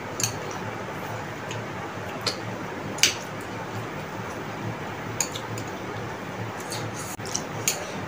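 Chow mein noodles being chewed and slurped, wet and squishy, with chopsticks clicking against the plates several times; the sharpest click comes about three seconds in.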